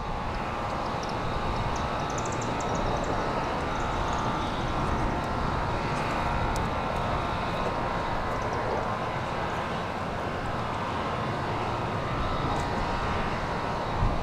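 Steady outdoor background noise: an even, unbroken rumble such as distant traffic or an aircraft, with a few faint high chirps in the first few seconds.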